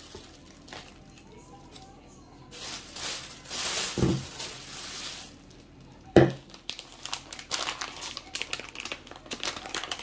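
Plastic bags and packaging rustling and crinkling as they are handled, with two sharp knocks of things set down on the tabletop, the second, about six seconds in, the loudest. Near the end comes a run of quick plastic crackles.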